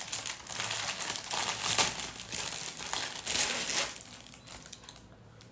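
Crinkly parcel packaging rustling and crackling as it is handled and unwrapped, in irregular bursts that die down about four seconds in.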